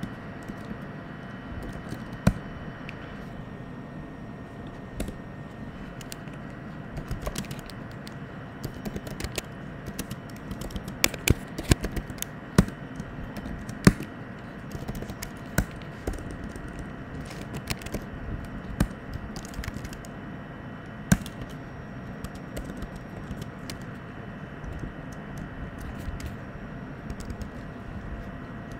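Computer keyboard typing: keystrokes come in irregular bursts, busiest through the middle, over a steady background hiss.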